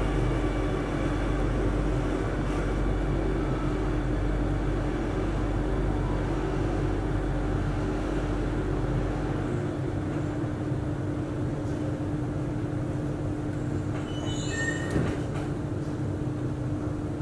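Interior of a Singapore MRT Circle Line train pulling slowly into a station. A steady hum runs with running noise, and the deep rumble dies away about halfway through as the train comes to a stop. The steady hum carries on after the stop, and a brief high squeak comes near the end.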